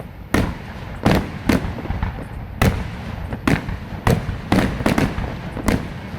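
Aerial fireworks shells bursting in quick succession during a display finale, a loud bang every half second or so, each with an echoing rumble after it.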